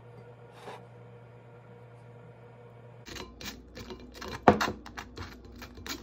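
A steady low hum, then, from about halfway, a metal spoon scraping and clicking against a wire-mesh strainer as it pushes aloe vera gel through, with one sharp loud click partway through.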